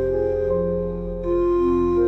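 Slow meditation music of long, held notes over a steady low drone. The melody moves to new notes a little past halfway.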